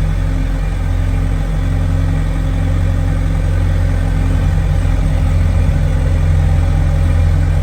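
Diesel engine of a farm loader running steadily, heard from the cab, its low hum growing a little louder near the end.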